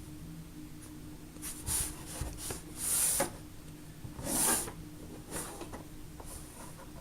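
Hands working Play-Doh modelling clay: soft rubbing and handling noises with a few short hissy swishes, over a steady low hum.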